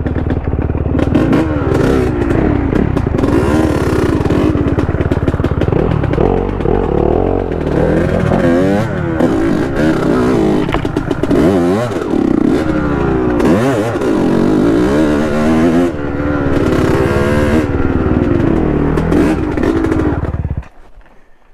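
Honda dirt bike engine riding a rocky trail, revving up and down again and again as the throttle opens and closes, with rattling and clatter over the stones. The engine is shut off near the end.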